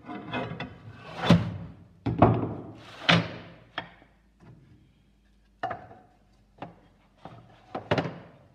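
Wooden strips knocked and set down against a lithographic stone on a press bed: a series of wooden thunks at uneven intervals, the loudest three in the first few seconds, a short pause, then several lighter knocks.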